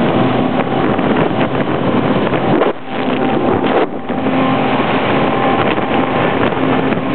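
Wind buffeting the microphone over the steady drone of boat engines and rushing water, heard aboard a sport-fishing boat running at speed among other boats. The noise dips briefly about three seconds in.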